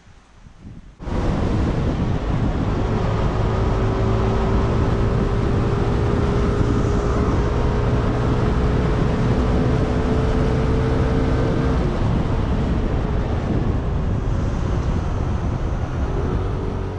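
Wind rushing over the microphone and the steady drone of a Yamaha scooter's engine while riding, starting suddenly about a second in.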